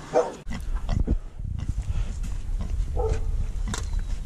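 A sow grunting and snuffling in a low, rough, continuous way while nosing through straw bedding, with a short higher grunt about three seconds in.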